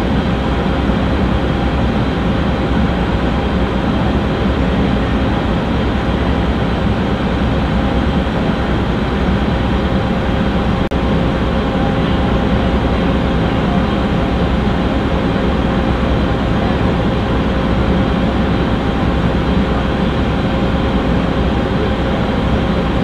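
Fire engine's diesel engine running steadily, a loud constant low rumble with a steady hum over it.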